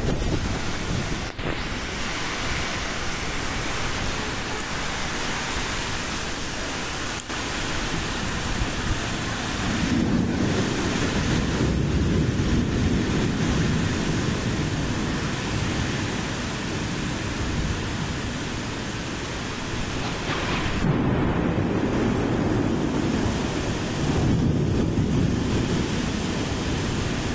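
Heavy rain in strong, gusting wind: a dense, steady rush of rain, with wind buffeting the microphone in heavier gusts about ten seconds in and again a little after twenty seconds.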